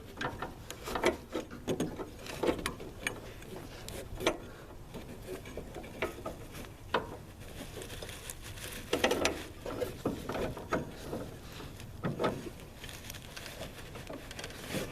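Scattered clicks, knocks and light rattles from hands working on a riding mower's deck belt and pulleys. They come irregularly, with a louder cluster about two thirds of the way in.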